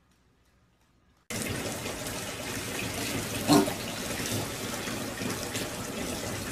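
After about a second of silence, a steady rushing noise starts abruptly. About two seconds later comes one short, pitched piglet call.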